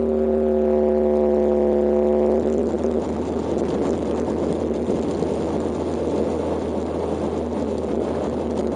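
Kawasaki KLX125's single-cylinder four-stroke engine running at steady revs while riding. After about two and a half seconds the steady engine note turns into a rougher, noisier sound as the bike moves onto an unpaved gravel road.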